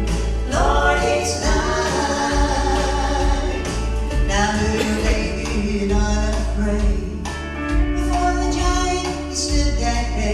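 Southern gospel music: voices singing in harmony over an instrumental accompaniment with a strong bass line.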